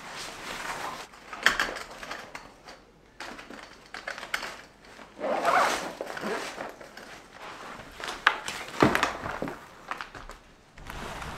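Nylon camping gear being folded and stuffed into its bag: irregular rustling and swishing of fabric, with zipping and a few sharp knocks.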